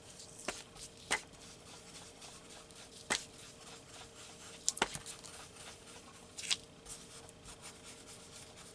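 Paper and craft pieces handled on a work surface: about six light taps and clicks at irregular moments, over a faint steady hum.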